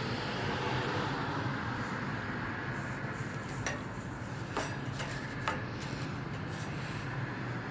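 Steady background hum and hiss, with three light, sharp clicks about halfway through.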